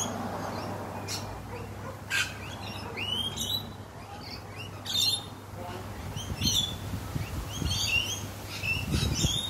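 Rainbow lorikeets calling in a flowering eucalyptus: many short, high-pitched chirps and screeches scattered throughout, over a steady low hum, with wind gusting on the microphone in the second half.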